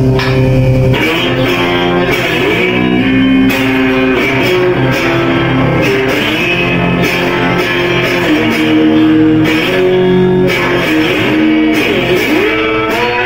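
Electric guitar played through a small Marshall amp: a slow line of held notes, several of them bent or slid up and down in pitch.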